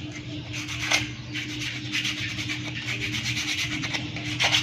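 Rhythmic rasping scrape, like a part being sanded or filed by hand, in repeated strokes that grow louder near the end, over a steady low hum.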